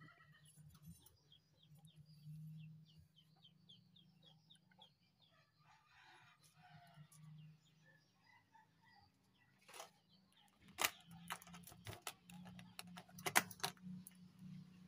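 Chickens clucking and calling in the background over a steady low hum, with a run of quick high chirps early on. From about ten seconds in come several sharp clicks and knocks as the incubator's metal door latch is handled.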